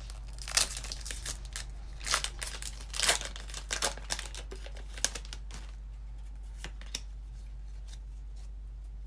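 Foil Pokémon card booster pack wrapper crinkling and being torn open, in a run of sharp rustles for about the first five seconds, then only a couple of light ticks.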